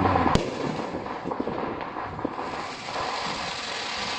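Fireworks going off in a display: one sharp bang just after the start, then continuous crackling with scattered smaller pops.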